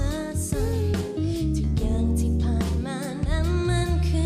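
A woman singing a pop song live into a microphone, her clear melody gliding over guitar and a low bass accompaniment.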